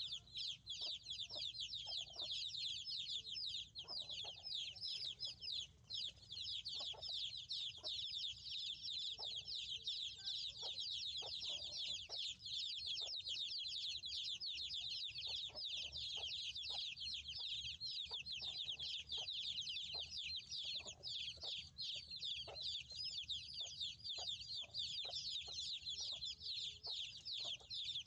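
Many young chicks peeping without pause, a dense high chirping of overlapping short calls, with a few faint soft knocks beneath.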